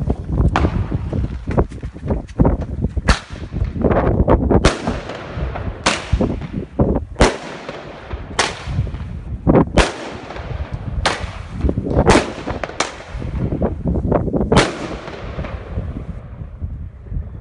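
A homemade firecracker cake of Dutch flash bangers (Thunderking, Corsair Thunder, Sick 6 and Choeet Shocks), linked by fuse, going off one after another. About a dozen loud, echoing bangs come at uneven gaps of roughly a second, stopping a few seconds before the end.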